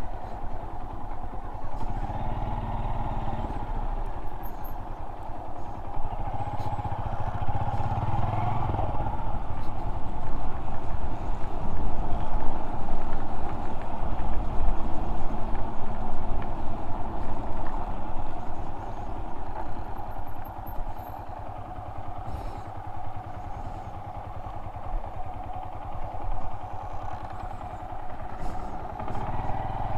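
Honda Monkey 125's air-cooled single-cylinder engine running steadily while riding, louder in the middle and easing off in the second half.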